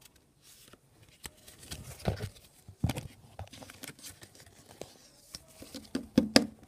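Foil booster pack wrapper being torn and crinkled and trading cards being handled: scattered rustles and clicks, with a couple of louder knocks a few seconds in.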